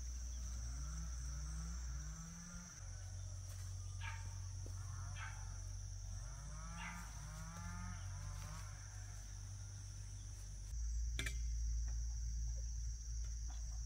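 A bovine calling in two runs of short, rising-and-falling calls a few seconds apart, over a steady high insect drone. Near the end a sharp click and a louder low rumble come in.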